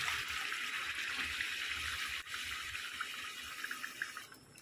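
Chicken and fried spice masala sizzling in a karahi as yogurt goes in: a steady hiss with small crackling pops, cutting off abruptly near the end.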